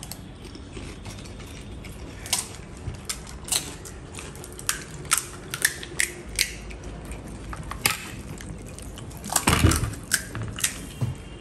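Crisp fuchka (pani puri) shells crunching and cracking as they are bitten and broken open: irregular sharp crackles, several a second, with a louder crunch near the end.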